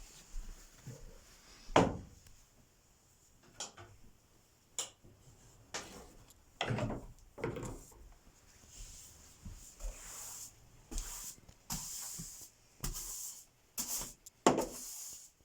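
Irregular household handling noises: scattered knocks and thumps, the loudest just under two seconds in, then a run of short swishing strokes in the second half.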